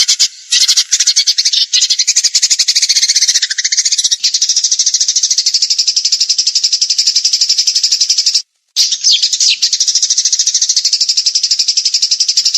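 Recorded songbird song of the kind used for training caged birds: a long, rapid, buzzy trill of evenly spaced high notes, with a falling slur a few seconds in. The sound breaks off abruptly twice, briefly at the start and for a moment about two-thirds through, as at splices in the recording.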